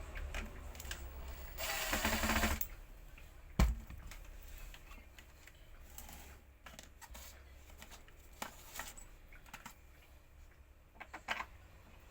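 Scattered clicks and knocks of small parts and tools being handled, with a short hiss about two seconds in and one sharp knock a second later.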